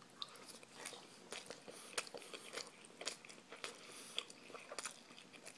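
A person chewing a mouthful of tuna sushi close to the microphone: faint, irregular wet mouth clicks and smacks.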